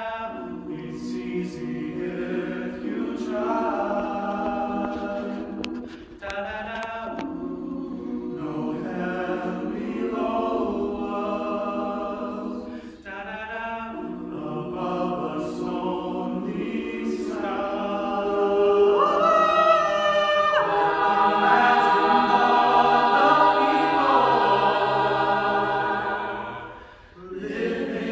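Mixed-voice a cappella choir singing held chords, men's and women's voices together with no instruments. The singing grows louder about two-thirds of the way through and drops out briefly near the end before going on.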